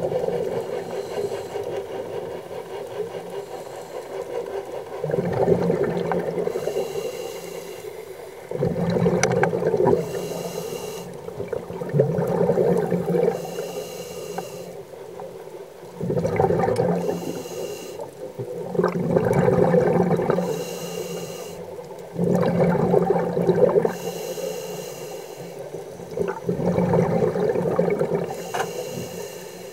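A scuba diver's regulator breathing underwater: a hissing inhale, then a bubbling exhale. The cycle repeats about every three and a half seconds.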